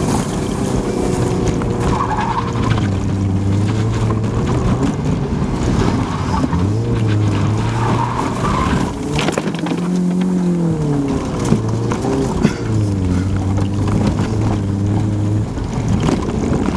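Opel saloon's engine revving while drifting, its pitch holding and then rising and falling, with tyres skidding over the loose, dusty concrete. Two sharp knocks about a second apart come about two-thirds of the way through.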